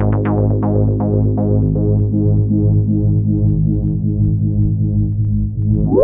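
Waldorf M wavetable synthesizer playing a Microwave preset: a sustained low chord under quickly repeating plucked notes that fade away over the first couple of seconds, leaving the held chord.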